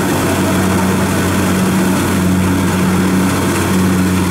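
Kubota DC-70 combine harvester running steadily while cutting rice in a wet paddy. Its diesel engine holds a constant low hum under working load.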